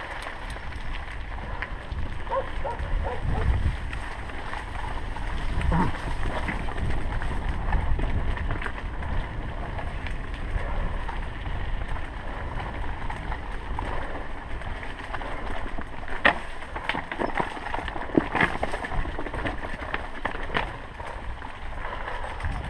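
Mountain bike ridden along a rough dirt singletrack: a steady rumble of tyres over the trail and wind buffeting the microphone, with scattered clicks and rattles from the bike over bumps, the sharpest about 16 and 18 seconds in.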